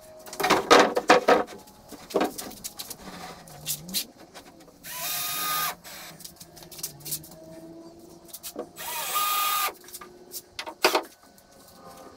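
Cordless drill driving screws through a form-ply tabletop into the timber frame: two runs of about a second each, with a steady whine. A clatter of knocks near the start and scattered knocks in between.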